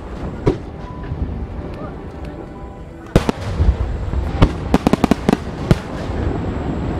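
Japanese star-mine fireworks, aerial shells bursting overhead: a few scattered bangs, then a loud report about three seconds in followed by a quick string of sharp bangs and crackles.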